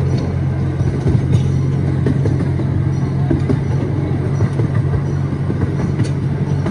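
Miniature park train running steadily, heard from aboard an open passenger car: a low steady drone with continual rattling and clatter of the cars on the track.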